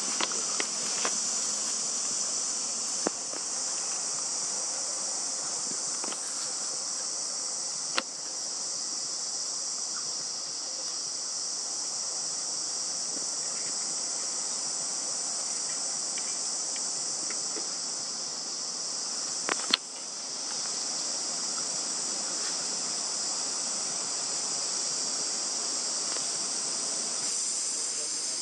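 Steady, high-pitched chorus of insects droning without pause, with a few sharp clicks scattered through it, the loudest about two-thirds of the way in.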